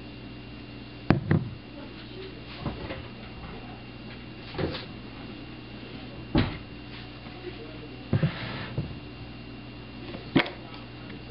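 Scattered knocks and clicks with a brief papery rustle about eight seconds in, from handling a cardboard tube of refrigerated cinnamon roll dough and peeling its paper wrapper, over a steady low hum.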